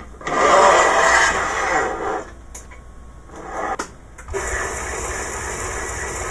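A wood lathe's tool rest being slid along the bed and set in place: a loud metal scraping for about two seconds, then a couple of sharp clunks. A steady rushing noise sets in about four seconds in.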